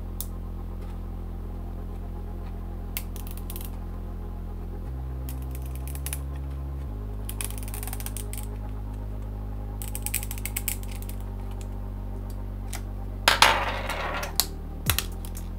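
Background music with a steady bass, over which a metal blade scrapes and clicks against the edge of a CD as its plastic layers are pried apart, with a louder burst of scraping near the end.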